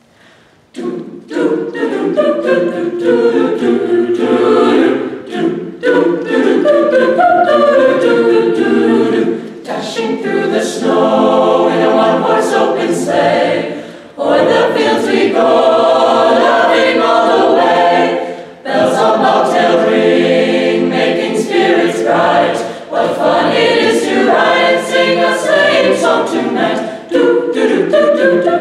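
Mixed-voice high school chamber choir singing a cappella, entering about a second in after a short quiet and going on in phrases with brief breaks between them.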